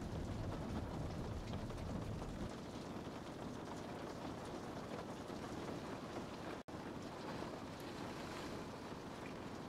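Steady rain falling, with faint scattered drop ticks and a low rumble underneath that fades out about two and a half seconds in. The sound cuts out for an instant about two-thirds of the way through.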